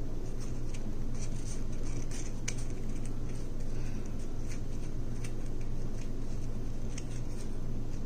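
Glitter foam sheet strips being handled and pulled tight into a knot: scattered soft rustles and small clicks of foam rubbing on foam, over a steady low hum.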